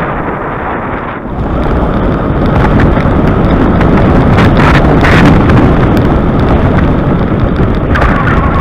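Wind buffeting the microphone in a loud, steady rumble that swells about a second in, with a few sharp knocks near the middle.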